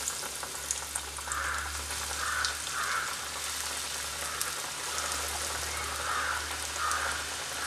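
Breadcrumb-coated banana pieces deep-frying in hot oil in a pan: a steady sizzle with scattered crackles.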